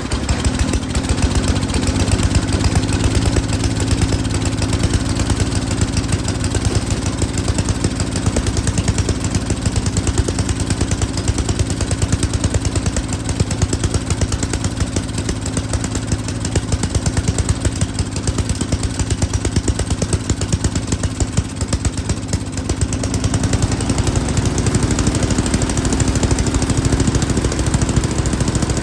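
Yard King snowblower engine running steadily at high speed, now that its carburetor's high-speed mixture screw, which had been turned all the way in and was starving the main jet of fuel, has been backed out. About 23 seconds in, the engine speed sags briefly and then climbs back up.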